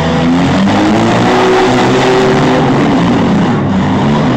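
Several demolition derby minivan, truck and SUV engines revving together, their pitch rising and falling.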